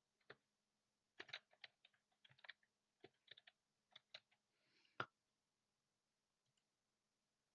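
Faint typing on a computer keyboard: an irregular run of key clicks for about five seconds, ending with one louder keystroke.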